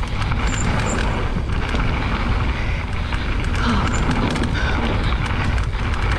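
Mountain bike descending a rough trail at speed: the bike rattles and clatters with many quick knocks, over a steady low rumble of tyres and wind on the microphone. The rattle is loud enough that the bike sounds like it's gonna break.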